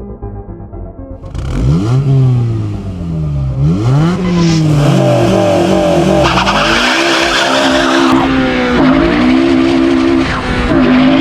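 The 2007 Honda Civic Si's 2.0-litre i-VTEC four-cylinder comes in loud about a second in, revving hard. Its pitch climbs and falls several times, then holds high with a couple of short dips near the end.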